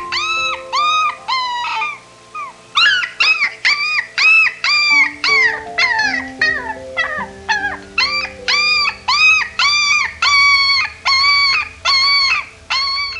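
A dog giving a long series of short, high yelping calls, about two a second, each rising and falling in pitch, over background music.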